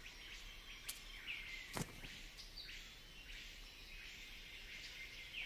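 Faint tropical forest ambience: a steady high hiss of insects with distant bird calls, and two short clicks about one and two seconds in.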